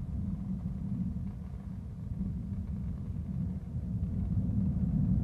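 A low, steady rumble with no distinct bangs or calls, growing louder near the end.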